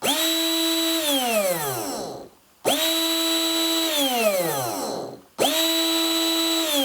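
Small brushed DC motor from a cordless drill, run on an ordinary on-off switch, three times. Each time it starts at once, whines steadily for about a second or a second and a half, then is switched off and winds down with a falling whine over about a second. It coasts to a stop instead of being braked dead as the drill's own trigger switch does, and it stops without sparking at the brushes.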